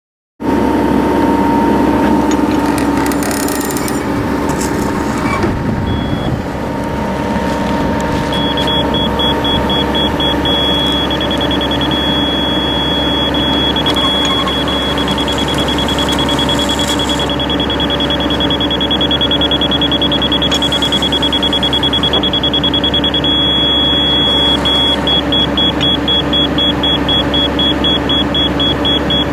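Hydraulic drive head and its machine running steadily as a Krinner steel ground screw is turned into the ground, while a digital level held against the screw beeps: quick high beeps from about eight seconds in, a continuous tone through the middle, then quick beeps again near the end. The continuous tone is the level's signal that the screw is standing plumb.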